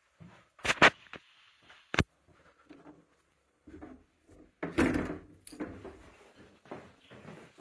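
Two quick knocks just under a second in and a sharp click at about two seconds, then a louder scuffing scrape around five seconds in, with softer rustling between them.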